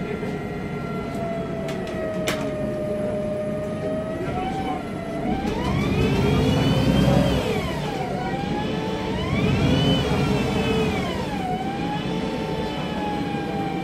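Inside a MAN Lion's Classic city bus, the Voith DIWA 864.3 automatic gearbox whining over the rumble of its MAN natural-gas engine. The whine holds steady and sinks slowly at first. About four seconds in it starts rising and falling in pitch, three times, as the bus pulls away and works up through the gears. A single sharp click comes early on.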